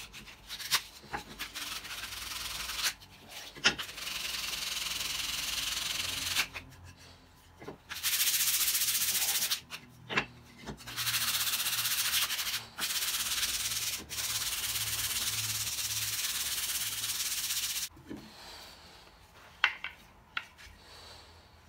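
Hand sanding of a carved rosewood saw handle: sandpaper rubbing on wood in several long stretches of steady hiss that stop and start abruptly. A few sharp knocks fall in the pauses.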